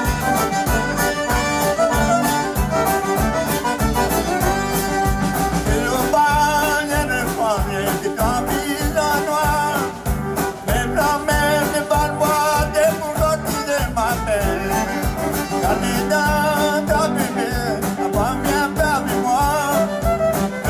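Background music with a steady beat, led by accordion.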